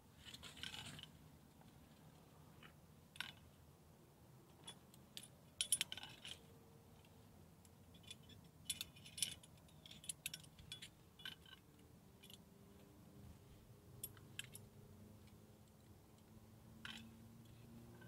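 Climbing hardware clinking: a camming device and carabiners jingle in scattered short clinks as the cam is worked out of the crack while the route is cleaned, busiest in the middle. A brief rustle comes near the start.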